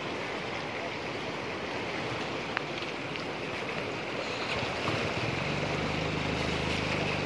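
Fast-flowing muddy floodwater rushing and churning past a riverbank. A steady low hum joins about five seconds in.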